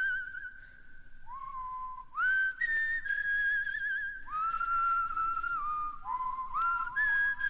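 A slow whistled melody of long, pure high notes. Each note slides up into its pitch, is held for a second or two and wavers at its end, with short breaks between phrases.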